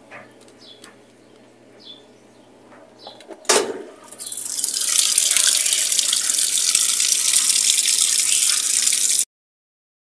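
Whirlpool top-load washing machine filling: water streams from the fill inlet splashing into the tub as a steady hiss, starting about four seconds in after a single knock and cutting off suddenly near the end.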